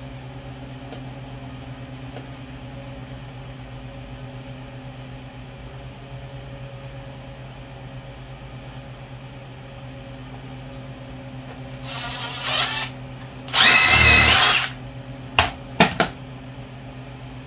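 A steady low hum, then two brief whirring bursts from a small power-tool motor about twelve and fourteen seconds in, the second about a second long and the loudest. A few sharp metallic clicks follow.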